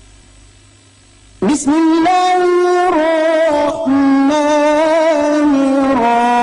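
A male qari reciting the Quran in melodic tilawah style, in maqam nahawand. After a second and a half of faint hum, the voice comes in suddenly and holds long, ornamented notes, with two brief breaks between phrases.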